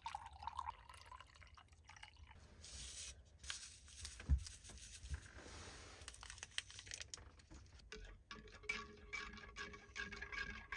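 Hot water pouring from a stainless steel kettle into a mug, then a single dull thump about four seconds in. A stick packet of powder is emptied into a ceramic mug, and over the last few seconds a spoon stirs and clinks against the mug.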